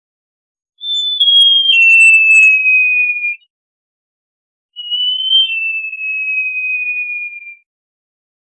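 Great jacamar giving two long, clear whistles. Each starts high, drops in a step or two, then glides slowly lower before stopping, about two and a half seconds long, with a pause of about a second and a half between them.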